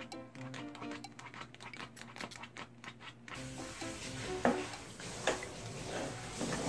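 Background music; about three seconds in, room sound comes in with a few knocks and scuffs of an empty plastic water bottle being pushed about on a hard floor by a puppy.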